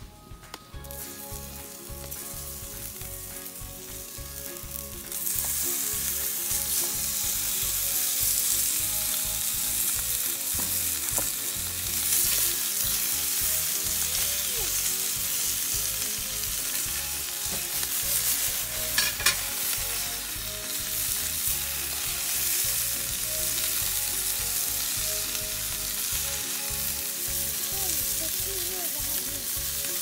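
Chunks of stew meat sizzling as they fry in a frying pan over a wood campfire, stirred with chopsticks. The sizzle grows louder about five seconds in and then holds steady.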